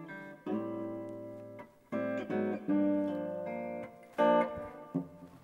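Solid-body electric guitar playing an unaccompanied intro: picked chords and single notes that ring out and fade, with a fresh attack every second or so.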